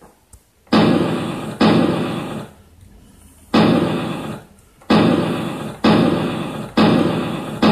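Gunfire sound effect played by a scale model armoured car's sound module: seven sharp shots at uneven intervals, each dying away over about a second.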